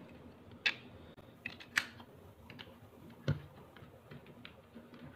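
Light clicks and knocks of plastic charger adapters and their cable being handled on a wooden desk as the charger is plugged into a power strip socket; three sharper clicks stand out among the small ones.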